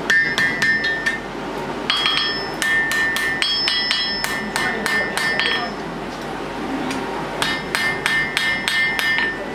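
Blacksmith's hand hammer striking a red-hot horseshoe on the anvil in quick runs of several blows a second, each run ringing with a clear metallic tone. There is a pause of under two seconds past the middle before the blows start again.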